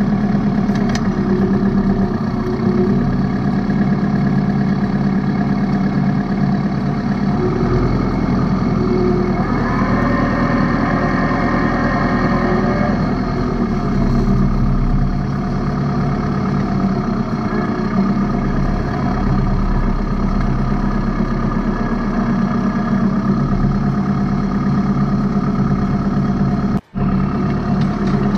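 New Holland Boomer 50 compact tractor's diesel engine running steadily while pulling a two-row corn planter through the field. The sound drops out for an instant near the end.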